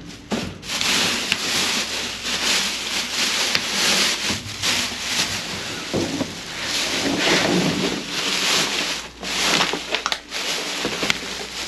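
Plastic garbage bags rustling and crinkling as gloved hands pull and shift them, in swelling and fading waves with a few sharp clicks.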